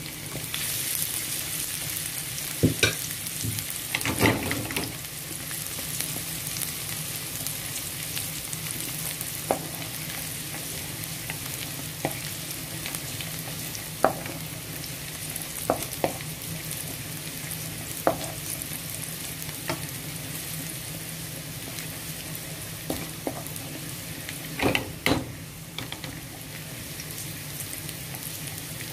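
Chopped garlic sizzling in hot olive oil in a wok, stirred with a wooden spatula: a steady frying hiss broken by sharp knocks and scrapes of the spatula against the pan, loudest about 4 seconds in and again near the end.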